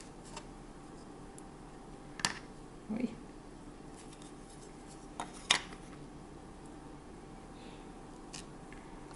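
Plastic cookie cutters handled on a floured countertop: a few scattered light clicks and taps, the sharpest about five and a half seconds in, over a faint steady hum.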